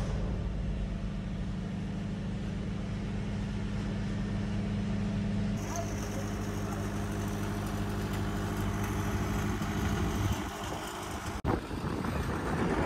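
Diesel engine of a bulk feed delivery truck running steadily at idle, a low, even drone.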